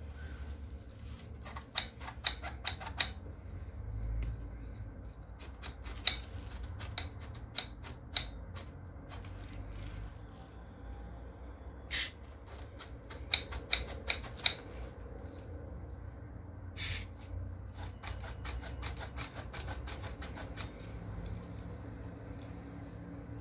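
Plastic brake mechanism on a pram's rear axle clicking as its spring-loaded locking pins are worked back and forth by hand, in several quick runs of sharp clicks. There are two short bursts of hiss, and a faint hiss near the end.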